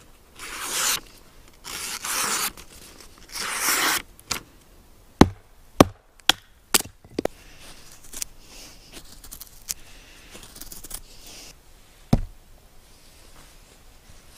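Forged steel knife blade slicing through sheets of paper: three strokes in the first four seconds. It is followed by several sharp knocks and then faint scraping as the blade shaves curls from a wooden stick.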